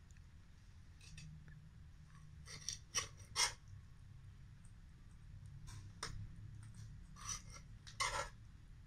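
Metal spatula scraping and clinking against a steel frying pan while scooping out saucy shrimp, in short clusters of clinks, the loudest about three seconds in and again near the end.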